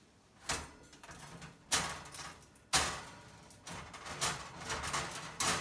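Metal pizza tray scraping and clanking against the wire oven rack as it is worked out of the oven: three separate scrapes about a second apart, then a quicker run of rattling near the end.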